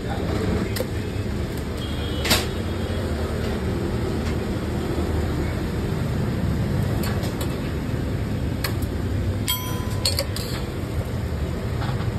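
Steady low rumble of street and stall background noise, with a few sharp clinks. The loudest clink comes a little over two seconds in, and a cluster of clicks follows near the end.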